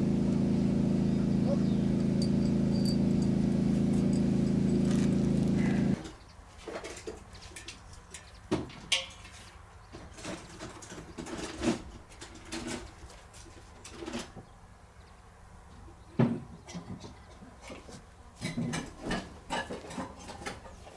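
A motor running with a steady hum that cuts off suddenly about six seconds in, followed by scattered knocks and clicks of handling.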